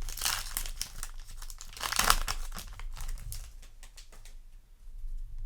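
Foil Yu-Gi-Oh! booster pack wrapper crinkling as it is torn open and handled, loudest about two seconds in and dying away after about four seconds.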